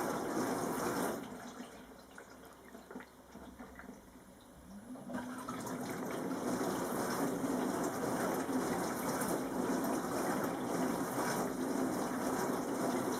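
Bosch SKS60E02GB countertop dishwasher running its quick-wash cycle, water spraying and splashing inside the tub. The spraying drops away about a second in, then comes back about five seconds in with a short rising hum of the pump and runs on steadily.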